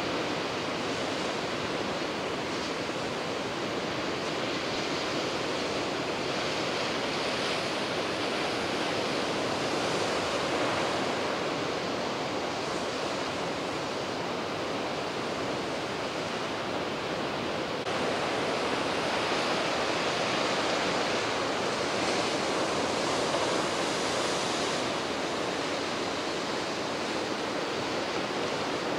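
Rough sea surf breaking on a sandy beach: a continuous wash of waves that swells and eases slowly in level.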